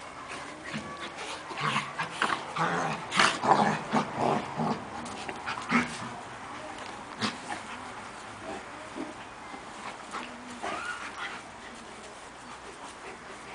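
Two Central Asian Shepherd dogs fighting, with yips and whimpers amid the scuffle, loudest in the first half. Then comes a quieter lull with one short rising whine.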